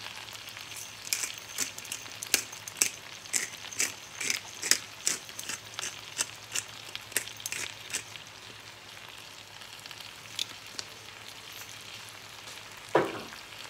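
Pepper grinder twisted by hand, cracking black peppercorns over a pan of cooking baby spinach: a run of sharp, irregular clicks lasting about seven seconds, over a faint steady sizzle from the pan. One short squeak falling in pitch near the end.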